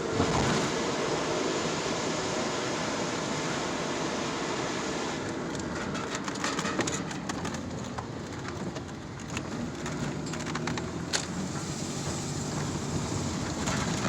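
A car running, a steady rumbling noise, with a run of sharp clicks and knocks in the second half, the loudest one about eleven seconds in.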